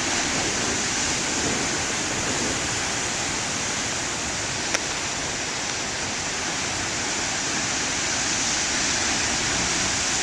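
Large ocean waves breaking on a beach: a steady, unbroken rush of surf, with one brief click about halfway through.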